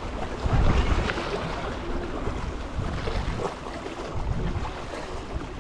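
Wind buffeting the microphone in low rumbling gusts over the wash of small sea waves against shoreline rocks.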